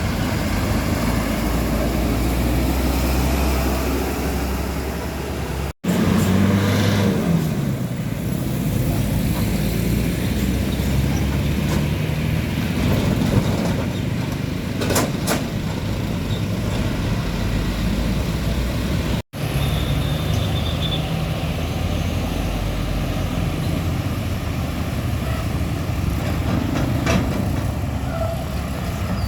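Road traffic with heavy diesel trucks driving past, their engines and tyres making a steady low rumble that swells as they pass, with a few short hisses like air brakes. The sound is broken by two sudden brief dropouts, one about six seconds in and one about nineteen seconds in.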